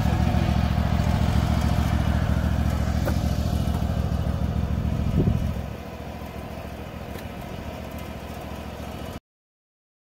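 Small engine of a riding mower idling steadily. It drops to a quieter level a little after halfway through and cuts off abruptly near the end.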